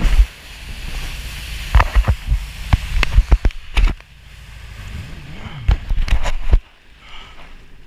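Irregular sharp knocks and thumps from an action camera on a jet ski being handled, a dozen or so scattered, over a steady hiss of wind and lapping water.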